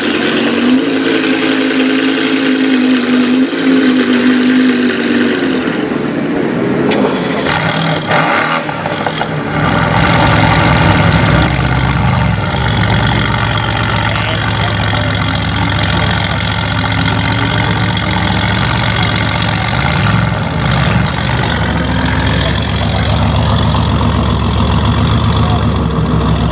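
The Batmobile replica's Lamborghini Gallardo engine idling with a steady pitched hum for about the first six seconds. After a break, a Mercedes-AMG GTS GT3 idles with a louder, deeper rumble, its pitch wandering slightly.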